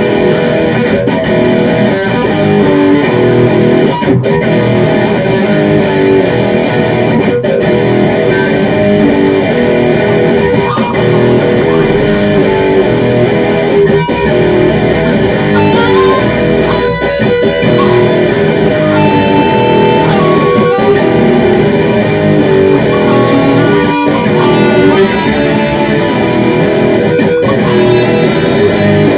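Hard rock in E minor on electric guitar with bass, poorly recorded. Held, bending lead guitar notes come in about halfway through.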